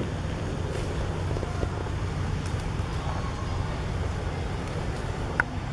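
Steady low outdoor rumble, with one sharp click about five seconds in.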